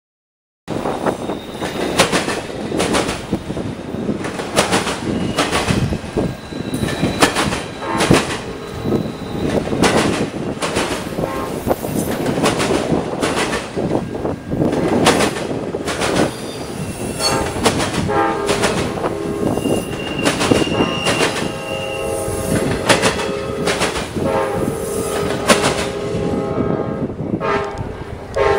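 CSX autorack freight train rolling past, its wheels clacking rapidly over rail joints and the crossing, with a brief wheel squeal about two-thirds of the way in. A train horn starts in the second half and is held to the end.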